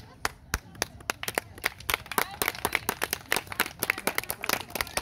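Spectators clapping by hand, a few sharp claps at first, thickening about a second in into irregular, overlapping claps from several people.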